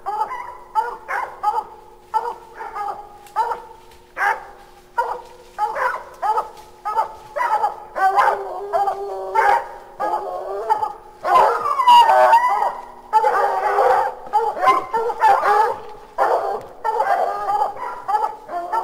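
Hounds barking treed at raccoons up a tree, a steady run of barks a few per second: the sign that the quarry is treed. About halfway through the barking ramps up, with several voices overlapping and longer, drawn-out bays.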